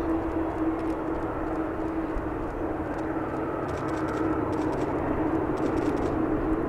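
Airbus A330-200's General Electric CF6-80E1 turbofans at takeoff thrust during the takeoff roll: a steady jet-engine rush with a steady humming tone running through it.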